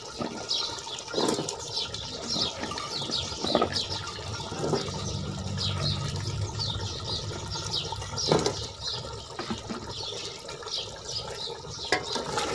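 Pot of beef and potato broth bubbling as potato pieces are dropped in and stirred with a ladle, which knocks against the pot a few times.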